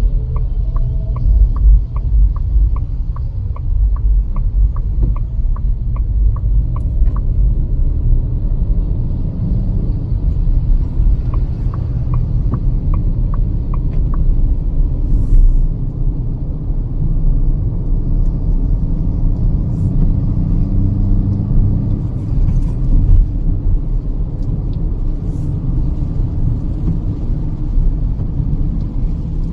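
Cabin noise of a Kia Seltos petrol manual driving on a highway: a steady low rumble of road and engine. A fast, light, even ticking runs through roughly the first seven seconds and comes back for a few seconds around the middle.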